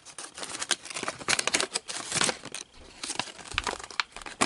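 Clear plastic bag wrapped around a 3x3 puzzle cube crinkling as it is handled and opened by hand, a run of irregular crackles.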